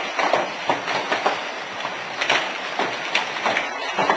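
Hailstones hitting a corrugated roof and the surroundings: a dense, continuous clatter of many sharp, irregular hits over a steady rushing hiss.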